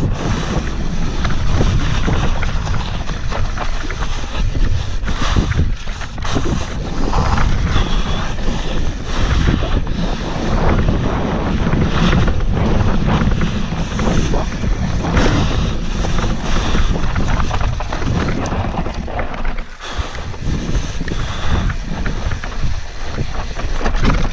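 Enduro mountain bike descending a dirt trail at speed: wind rushing over the action camera's microphone, with tyres on dirt and the bike clattering and knocking over bumps and roots.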